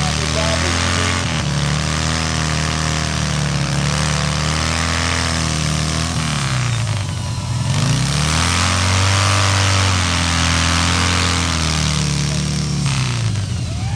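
Harley-Davidson V-twin hot saw running hard as it cuts through a log. The engine note dips briefly twice, about seven seconds in and again near the end, then climbs back.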